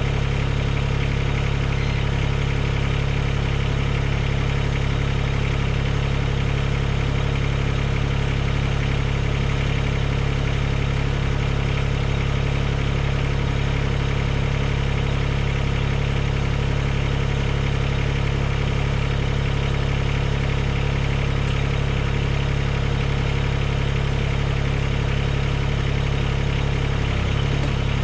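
Mahindra eMax 20S HST tractor's diesel engine idling steadily.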